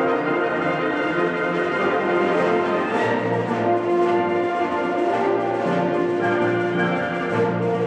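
Wind band playing slow, sustained chords, with French horns, trombones and trumpets over flutes and saxophones.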